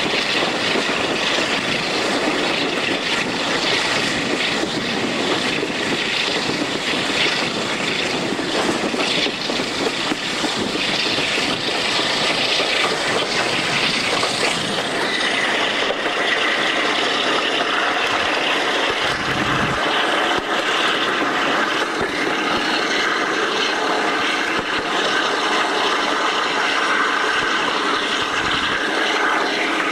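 Passenger train on the move, heard from an open coach window: a steady rush of wind and rail noise, with the drone of the hauling diesel locomotive's engines beneath. The sound shifts in tone about halfway through.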